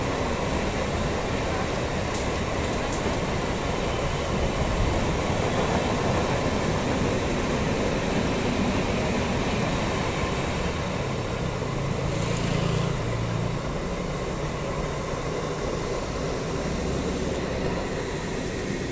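Passenger express coaches running past at speed on the adjacent track, a steady rumble and rattle of wheels on rails. The last coach goes by near the end.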